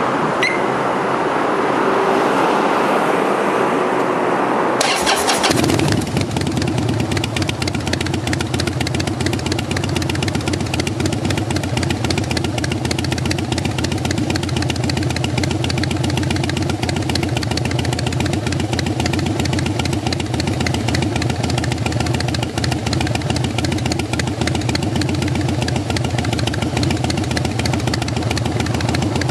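Harley-Davidson air-cooled V-twin starting up through a Bassani exhaust, catching about five seconds in and then idling steadily.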